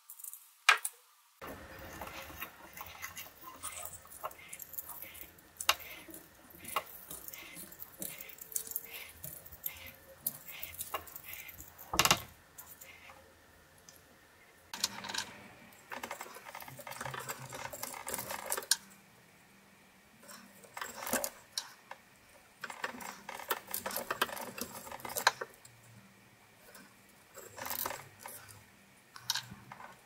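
Victorinox Swiss Army knife tools being worked by hand: repeated small metallic clicks and taps, one sharper click near the middle, and two longer spells of scraping as the tools work wood and wire.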